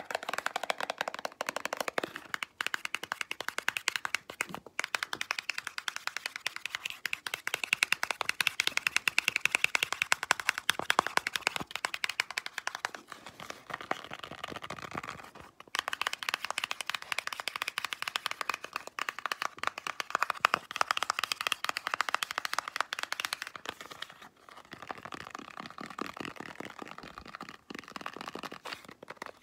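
Fingernails tapping and scratching rapidly on a small cardboard box, a dense run of fast clicks broken by a few short pauses.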